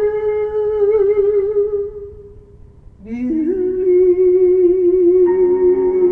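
A woman singing into a handheld microphone: a long held note with vibrato fades out about two seconds in, and after a short breath a new held note begins about three seconds in. Lower notes come in beneath it near the end.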